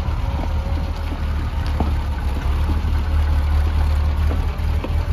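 1955 Series One Land Rover's four-cylinder petrol engine running steadily at low speed as the vehicle crawls past on a gravel track, with a few sharp clicks over the deep rumble.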